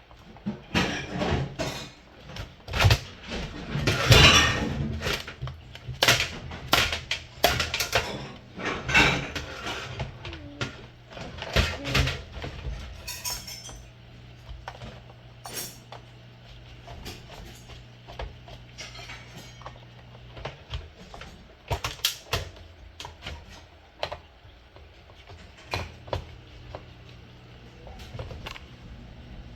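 Clicking, knocking and clinking of a screwdriver and small plastic and metal parts handled while an alarm clock is taken apart. The knocks come thick and fast for the first dozen seconds, then thin out to scattered clicks, with a low steady hum for several seconds in the middle.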